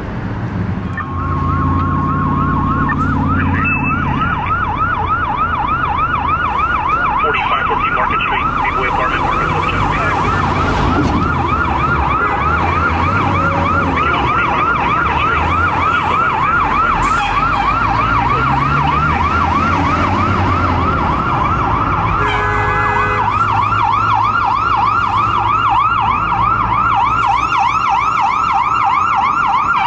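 Electronic emergency-vehicle siren in a fast up-and-down yelp, continuous from about a second in, with a heavy engine running low underneath at the start. About 22 seconds in, a short horn blast sounds over the siren.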